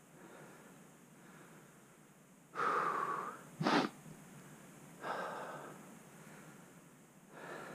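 Three heavy breaths, about two and a half seconds apart, the first the loudest, with one short sharp burst between the first two.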